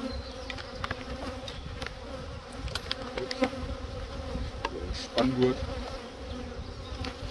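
Honeybees buzzing around an open hive, a steady hum, with a few light clicks and knocks as a wooden frame and divider board are set back into the hive box.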